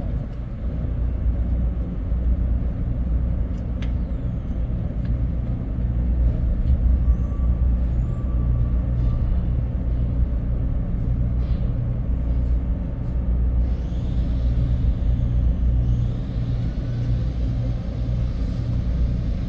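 Ship's machinery running: a steady low drone.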